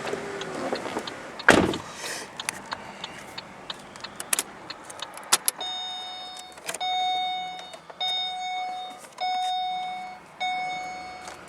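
A thump about a second and a half in and some small clicks, then a car's electronic warning chime: a steady beep of one pitch repeating five times, each about a second long with short gaps.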